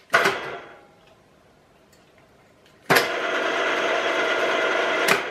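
DMF-42 geared-head drill press motor and gearbox switched on in tapping mode: a short burst of running sound right after the start button is pressed that dies away within half a second, then about three seconds in the spindle runs with a steady gear whine for about two seconds before cutting off sharply.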